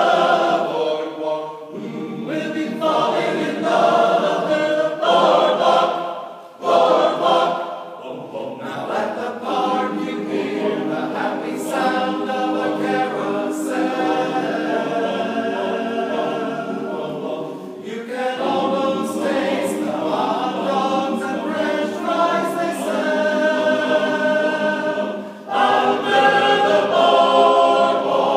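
Men's chorus singing together, sustained phrases with brief pauses between them.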